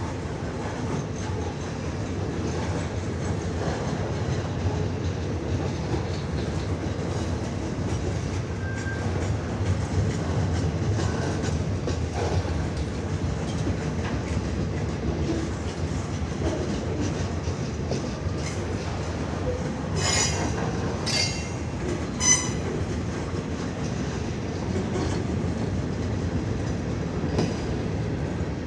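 CN freight train's cars rolling past: a steady rumble of wheels on rail with scattered clicks. About two-thirds of the way through come three short, sharp metallic sounds in quick succession, the last the loudest.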